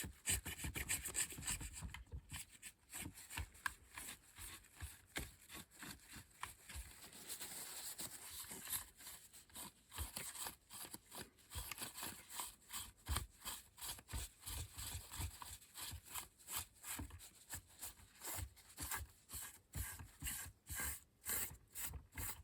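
Soft tissue rubbed over the body sides of a model locomotive, wiping off black wash: a faint run of rapid, uneven scuffing strokes.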